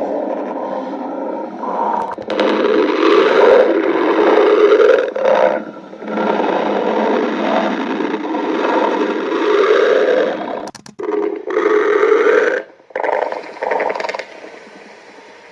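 Stomach growling: a long, loud, gurgling rumble that runs for about ten seconds, then breaks into a few shorter rumbles and trails off quieter near the end.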